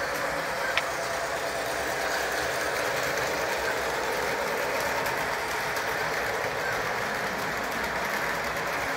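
Model trains running on the layout: a steady whir of the electric motors and wheels on the track, with a single click about a second in.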